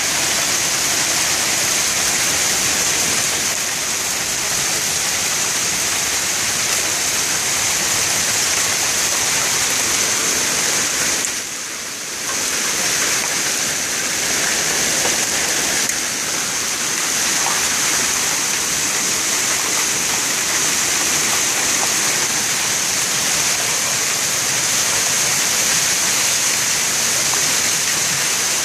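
Hailstones mixed with rain pelting down on pavement, parked cars and a concrete patio: a steady, dense, loud downpour that drops briefly about eleven seconds in.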